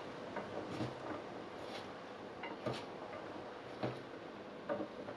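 Raw potato sticks coated in spice powder being tossed by hand in a non-stick pan: faint rustling with scattered light clicks, irregular, about one or two a second.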